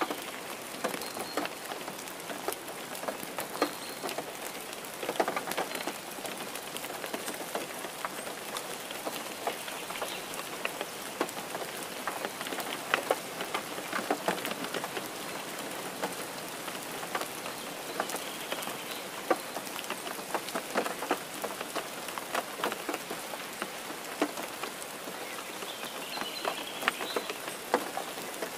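Steady rain falling, with many close drops tapping sharply through the hiss.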